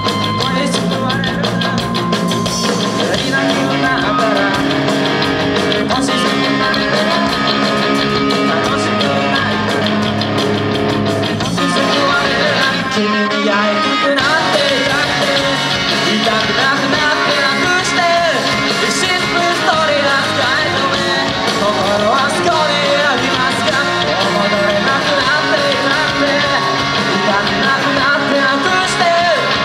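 Live rock band playing loud through a PA, with electric guitars and drums. The low end briefly drops out about 13 seconds in, then the full band comes back.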